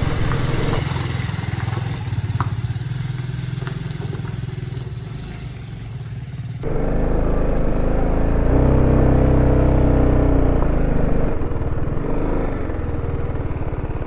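Motorcycle engine running steadily at low revs. About six and a half seconds in the sound changes abruptly, and from about eight seconds the engine note rises in pitch and falls back as the bike accelerates and eases off.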